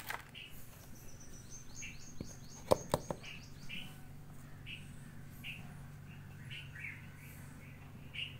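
Small birds chirping over and over, with a fast trill of short falling notes in the first few seconds. Two sharp knocks about three seconds in are the loudest sounds.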